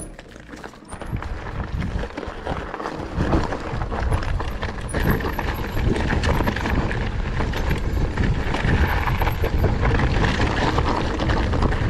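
Lapierre GLP2 electric mountain bike riding over rough, rocky ground: a constant clatter of tyres on stones and the bike rattling, with heavy wind rumble on the action-camera microphone, building about a second in.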